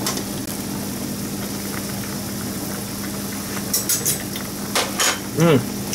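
Soy-based braising liquid bubbling at a rolling simmer in a large aluminium pot holding a sturgeon head, under a steady low hum. A few light metal clinks come a little past halfway.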